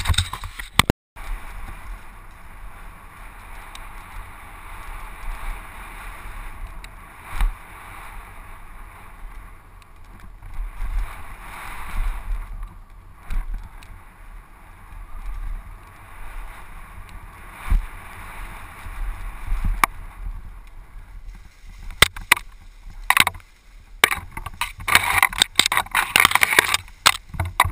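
Mountain bike descending a dirt trail, heard from a camera on the bike: a steady rush of tyre and wind noise with rumble and occasional knocks. Near the end come many quick rattles and knocks as the bike goes over rougher ground and through tall grass.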